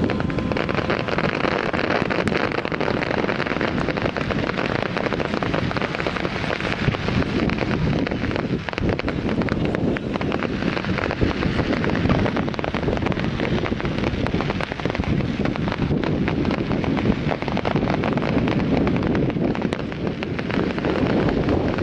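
Fireworks display going off without pause: a dense run of crackles, pops and bangs, with wind rumbling on the microphone.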